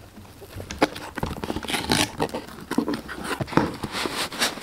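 Cardboard box being opened by hand: flaps and packing rustling and scraping, with scattered light taps and knocks.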